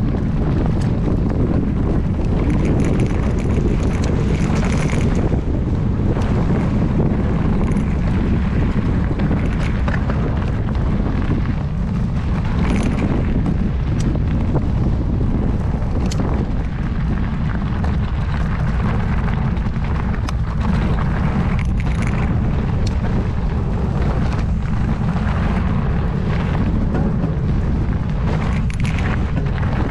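Heavy wind buffeting on a helmet or action camera's microphone while a mountain bike descends fast on a dirt trail: a steady low rumble, with scattered sharp clicks and knocks from the bike over rough ground.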